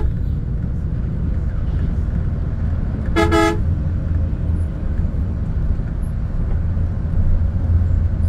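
Steady low engine and road rumble inside the cabin of a moving Volvo AC coach, with a quick double honk of a horn about three seconds in.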